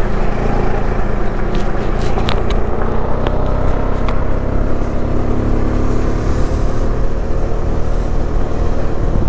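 Motorcycle engine running at a steady cruise with road noise, heard from the rider's seat; a few short clicks come between about one and a half and four seconds in.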